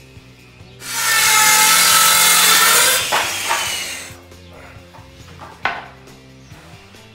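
Electric power saw cutting through a pine board for about two seconds, then its motor whine falling away as it winds down after the trigger is released. A single sharp knock follows near the end as the cut piece is set down on the floor.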